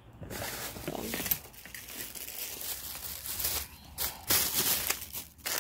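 Plastic packaging crinkling and rustling as it is handled, loudest in bursts during the last second and a half.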